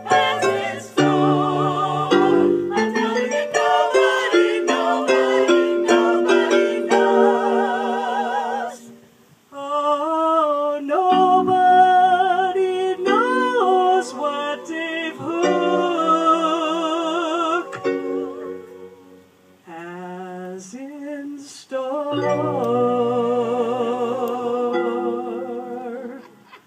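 A small group of singers with digital piano and clarinet accompaniment performing a song, with two short breaks in the music about nine and nineteen seconds in.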